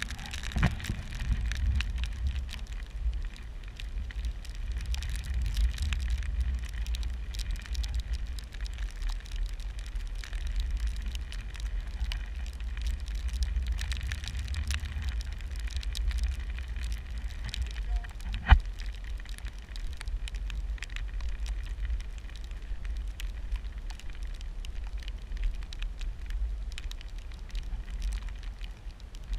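Wind buffeting the microphone as a steady low rumble, with scattered light crackling throughout. A single sharp click about eighteen seconds in.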